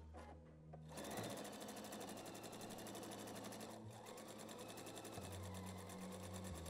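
Pfaff quilt expression 720 sewing machine stitching a seam in jersey fabric, running at a fast, even stitch rate. It starts about a second in, pauses briefly just before the halfway point, then runs on and stops near the end.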